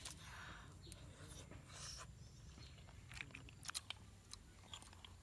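A person eating cooked snails with mushrooms, chewing softly, with a few sharp clicks and mouth noises scattered through.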